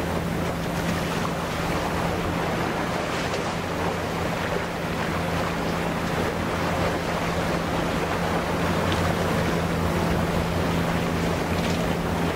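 Ship engines running with a steady low hum, over a wash of water and wind noise on the microphone.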